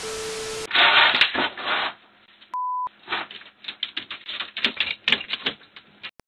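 A burst of TV-static sound effect with a steady hum, cut off after under a second. Then rough scuffling noise, a short electronic beep, and about three seconds of quick, irregular clicking and knocking from dogs' claws and feet scrambling on wooden porch boards.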